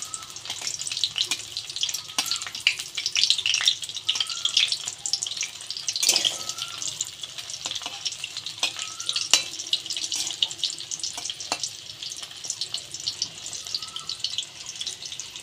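Fish roe fritters deep-frying in hot oil, with a steady crackling sizzle. A metal spatula clicks and scrapes against the pan as they are turned.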